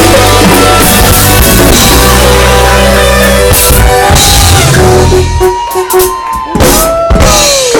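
Live band playing, loud: full drum kit over a steady bass line, with guitar. About five seconds in the bass drops out, leaving drum hits and a few high notes sliding in pitch.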